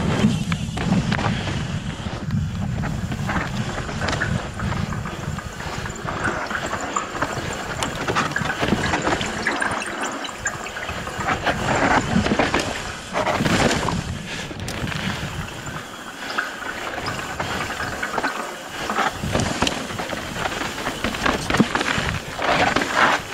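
Mountain bike riding down rough trail: wind rushing over the ride camera's microphone, with tyres rolling over rock and dirt and the bike knocking and rattling over bumps. The wind rumble is heaviest in the first few seconds.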